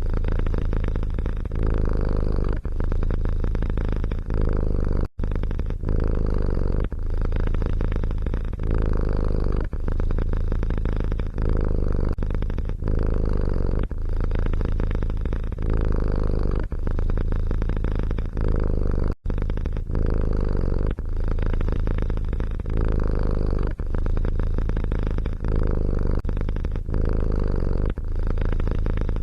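Domestic cat purring close to the microphone, a steady low rumble that swells and eases with each breath about every second and a half. The sound drops out briefly twice.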